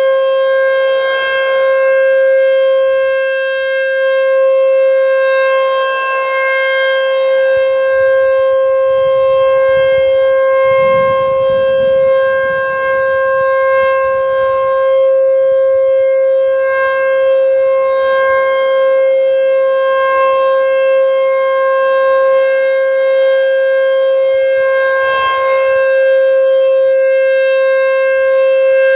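Federal Signal T-128 outdoor warning siren sounding a steady alert tone: one constant high pitch with no rise or fall. The tone swells and fades slightly as the rotating head sweeps around.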